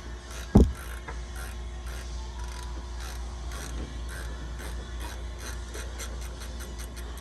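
Socket ratchet clicking in short strokes on the 19 mm lower mounting nut and bolt of a rear shock absorber, working it loose. The clicks come faster near the end. A single heavy thump about half a second in.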